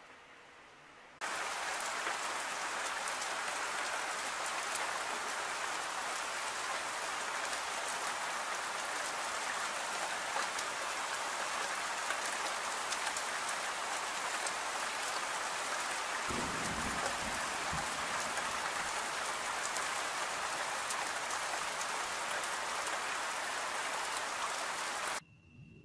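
Heavy rain pouring steadily onto spruce trees. It starts abruptly after about a second of faint hiss and cuts off suddenly just before the end. A brief low rumble joins in about two-thirds of the way through.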